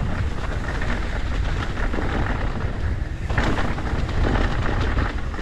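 Mountain bike clattering loudly over rough trail, a continuous rattle of many quick knocks over a heavy low rumble. The rider hopes the noise is all chain slap, the chain slapping against the frame rather than something broken.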